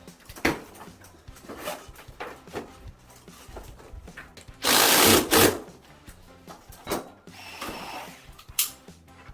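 Installation work noises: scattered knocks and clicks of tools and parts being handled, with one loud burst just under a second long about five seconds in.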